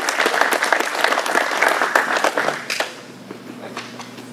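A small crowd applauding, many hands clapping quickly, which dies down about three seconds in.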